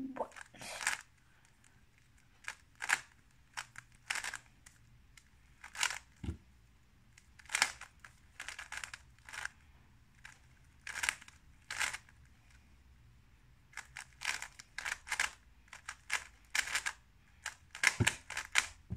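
A plastic 3x3 speed cube being turned quickly by hand: irregular bursts of rapid clicking layer turns, broken by short pauses. A dull knock comes about six seconds in and again near the end.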